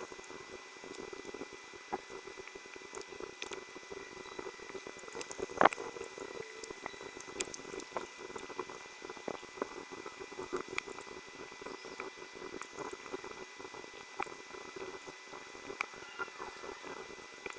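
Irregular small clicks and taps of keyboard parts being handled and fitted during assembly, with one sharper click about six seconds in, over a faint steady hum.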